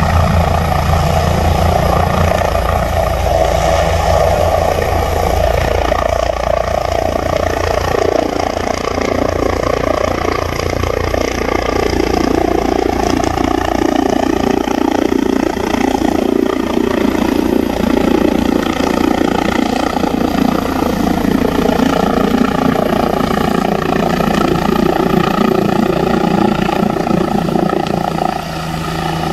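Helicopter lifting off and climbing away overhead, its rotor and turbine running loud and steady. A rapid rotor beat dominates the first dozen seconds or so, then a turbine whine shifts in pitch as the helicopter passes overhead.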